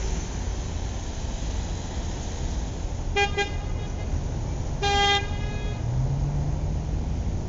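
A horn toots twice briefly about three seconds in, then once more, a little longer, about a second and a half later, all at the same pitch, over a steady low rumble.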